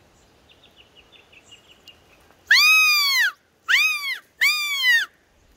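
Three loud, squeaky calls from a hunter's sambar deer call, imitating a calf's distress bleat to bring a hind in. Each call rises and then falls in pitch, the first a little under a second long and the next two shorter, close together.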